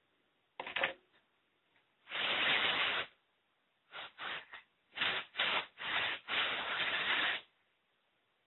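Compressed-air duster can sprayed through its thin straw in hissing bursts: one of about a second, three quick puffs, then a run of longer blasts. They are blowing a clump of dust out of a laptop's cooling vent. A short knock comes just before the first burst.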